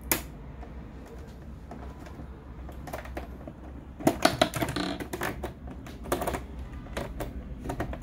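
Plastic snap clips of an HP all-in-one PC's back cover clicking loose as a flat pry tool is worked along the seam. A sharp click comes right at the start, then a burst of clicks and crackling about four seconds in, and more single clicks near the end.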